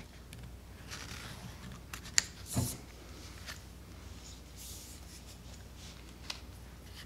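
Handling noise from a Milwaukee M18 Fuel Quick Lok articulating hedge trimmer attachment being turned over in the hands: light rustling, a sharp click about two seconds in and a knock just after, as the articulating head and its coupler are moved.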